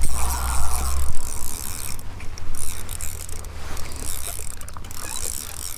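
Fishing reel being cranked with a steady whirring, clicking ratchet sound as a hooked crappie is reeled in through the ice.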